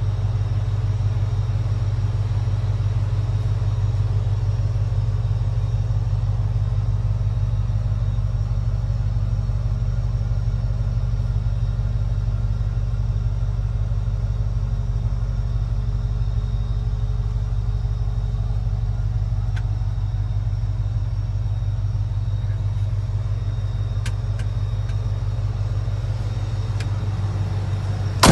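Swapped-in Ford Lightning V8 in a 1979 Ford idling steadily with an even low rumble.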